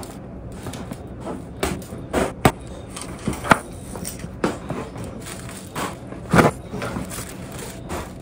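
Soft baby toys with plastic rings and clips being handled, hung on a board and dropped onto a tile floor: irregular clicks and knocks, with a few sharper ones.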